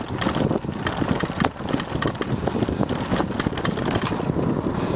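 Wind buffeting the microphone over a constant clatter of small knocks and rattles from riding across bumpy grass.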